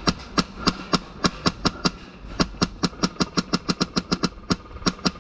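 Airsoft gun firing a rapid string of shots, about five or six a second, with a brief pause about two seconds in.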